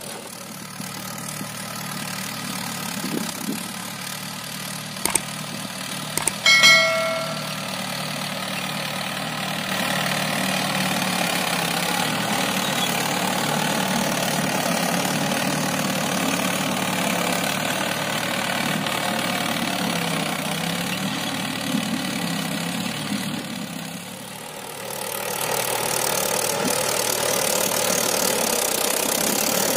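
Mahindra 575 DI tractor's diesel engine running steadily under load as it pulls a tine cultivator through dry soil. A few sharp clicks and a short ringing metallic clang come about six to seven seconds in.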